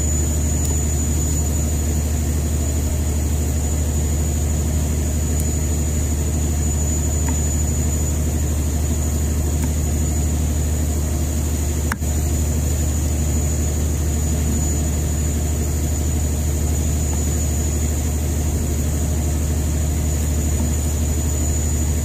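Fishing boat's engine running steadily: a deep, even drone with a thin high whine above it, and a brief click about halfway through.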